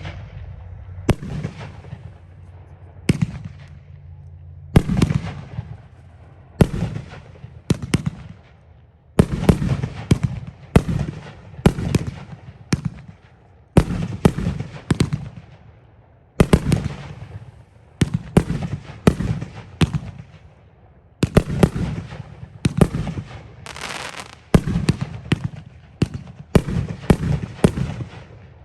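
Sky Bacon 9-shot 500-gram consumer fireworks cakes firing: a rapid series of loud, sharp bangs from the shells breaking overhead, one to three a second in clusters with short lulls between.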